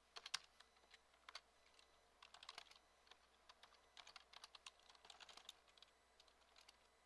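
Typing on a computer keyboard: faint keystrokes in short, irregular runs with pauses between them.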